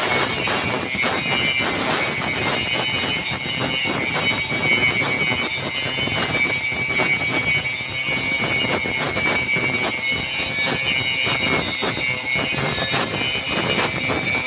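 Machine for making wobbler fishing lures running steadily, with a continuous rapid, irregular crackling like a cutter working on material.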